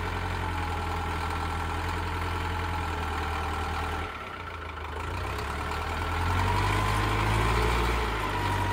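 Caterpillar 910 wheel loader's diesel engine running while it digs and dumps dirt. The engine sound dips about four seconds in, then builds up again near the end.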